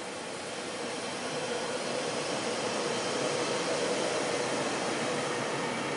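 Red DB electric locomotive hauling Intercity coaches moving past, its blowers and motors giving a steady rushing noise with a hum under it, while the coaches roll by behind it. The noise grows louder over the first couple of seconds.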